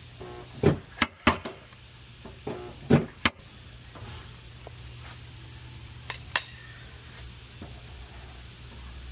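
A series of short, sharp knocks and clunks: several in the first three seconds or so, then two more about six seconds in, over a steady low hum.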